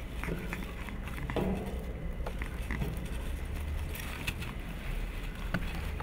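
Cavalier King Charles spaniel puppies scrambling over picture frames on artificial turf: scattered light taps and knocks over a steady low rumble.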